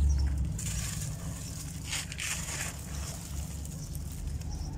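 Hands crushing and crumbling packed dry grey sand: a low thud at the start, then a few short gritty crumbles about two seconds in.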